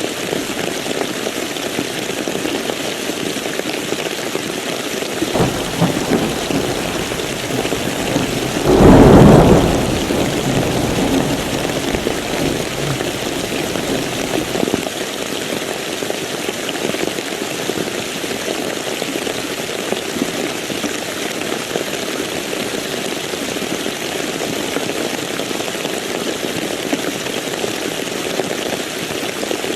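Steady rain falling throughout. A low rumble of thunder builds about five seconds in, and a loud thunderclap breaks about nine seconds in, then rolls away over the next few seconds.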